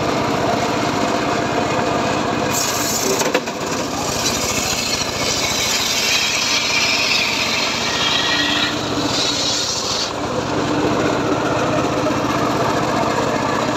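Homemade engine-driven circular saw bench ripping a teak log. The engine runs steadily throughout, and a loud hissing rip from the blade biting the wood starts about two and a half seconds in and stops about ten seconds in, with one sharp knock near the start of the cut.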